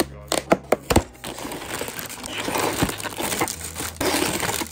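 LEGO set packaging and pieces being handled: several sharp clicks in the first second, then a few seconds of dense crinkling and crunching, like plastic packaging being opened.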